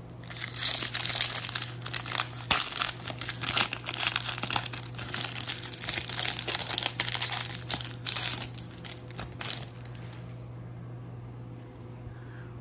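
Crinkling and tearing of a foil baseball card pack wrapper as it is torn open and the cards are slid out, stopping about ten seconds in.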